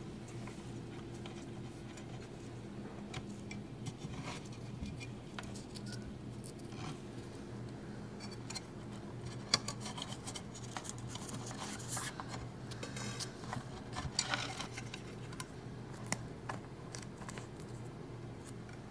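Scattered clicks, taps and scrapes of a woofer and its screws being handled and fitted back into a speaker cabinet, busiest in the middle, over a steady low hum.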